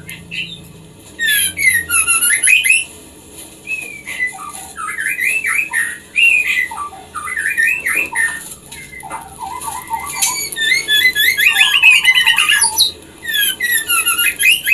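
White-rumped shama (murai batu) calling in several loud bursts of quick rising and falling whistles and chattering notes, separated by short pauses: the call of a female shama in breeding condition calling to a male.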